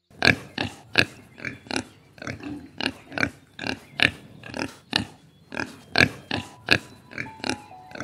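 A group of piglets giving short, high calls in quick succession, about two or three a second.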